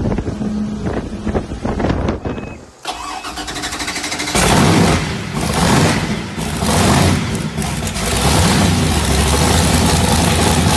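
Twin supercharged V8 marine engines in a go-fast boat's engine bay fire up about four seconds in and are blipped several times, then settle into a steady, loud idle. Before the cut, a speedboat runs at speed with wind on the microphone.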